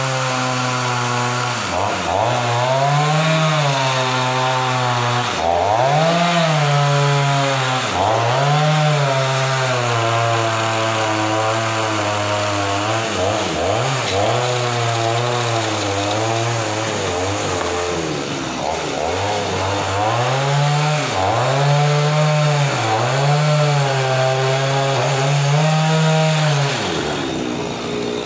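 Gasoline chainsaw cutting through a large log, its engine at full throttle with the pitch repeatedly sagging and picking back up as the chain bites into the wood. Near the end it drops back to a lower, steady idle as the saw is lifted out.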